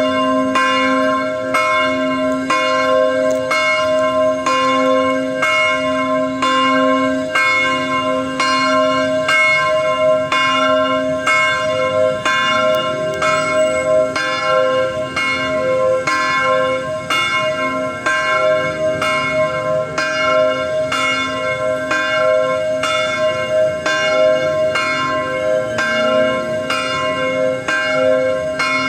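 Church bell ringing, struck over and over in a quick, even rhythm so that each stroke rings into the next.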